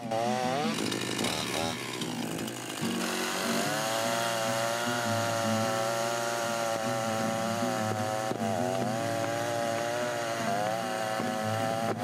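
Two-stroke chainsaw cutting into a fallen aspen (popple) trunk. The engine revs up and down over the first few seconds, then holds a steady high pitch under load, dipping briefly a little past the eight-second mark before carrying on.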